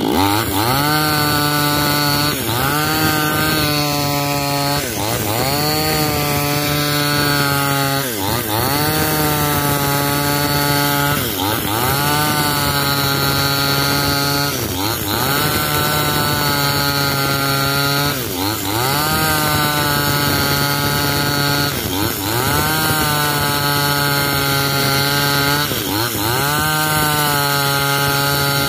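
Two-stroke chainsaw cutting into an old coconut-palm log, the engine held at high revs under load. Its pitch dips sharply and climbs back about every three seconds as each cut is made.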